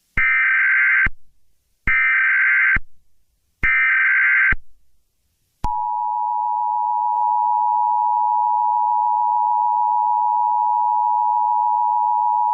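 Emergency Alert System SAME header: three short, equal bursts of warbling data tones. About five and a half seconds in, the EAS two-tone attention signal begins, a steady dual-pitch tone that holds without a break.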